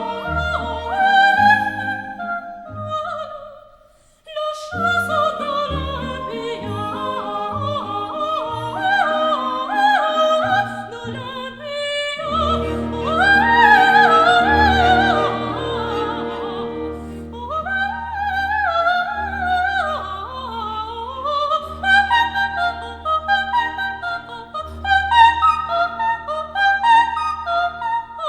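Operatic singing voice with vibrato over orchestral accompaniment, pausing briefly about four seconds in before the voice and orchestra resume.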